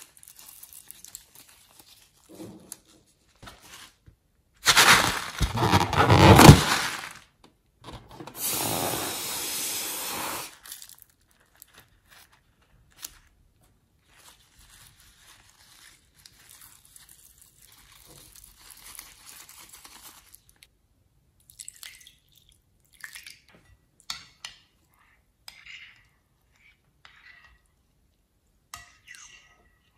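Thick liquid squeezed out of rubber balloons into a glass bowl: wet squelching gushes, two loud stretches a few seconds long, with the rubber crinkling between them. Later come short scattered clicks and scrapes as a stick stirs the wet mix in the bowl.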